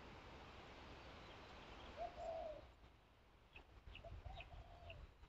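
Faint outdoor ambience: a dove cooing in short phrases, with a few high chirps from small birds and a soft hiss that drops away about three seconds in.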